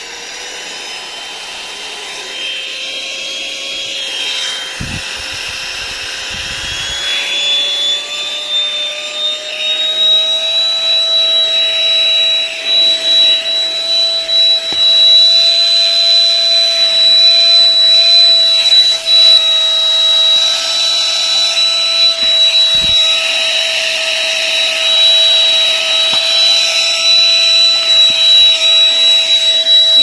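MIUI mini cordless handheld vacuum cleaner running with a high-pitched motor whine. Over the first ten seconds the whine rises in pitch and grows louder, then holds steady at the high power setting, wavering as the nozzle is worked over sofa upholstery. A few light knocks of the nozzle are heard, and the sound cuts off at the end.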